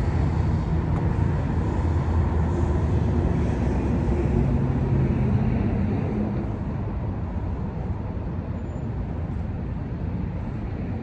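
Motor vehicle engine running close by, a low rumble that fades somewhat about six seconds in.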